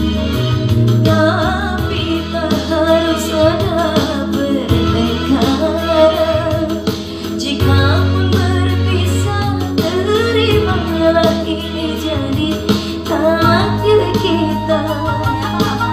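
A woman singing a slow dangdut-style song into a microphone, her melody wavering with ornamented cengkok turns, over an instrumental backing with long sustained bass notes.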